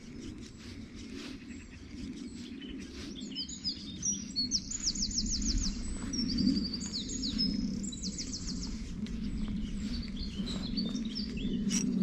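A small songbird singing nearby: quick runs of rapid, high repeated notes, loudest in the middle of the stretch, over a low steady background rush.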